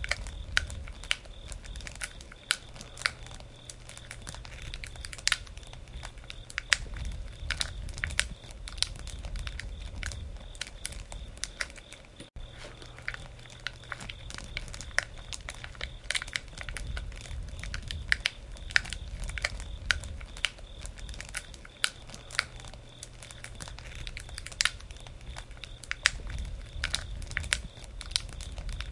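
Campfire burning: wood crackling with frequent irregular snaps and pops over a low rumble of flames.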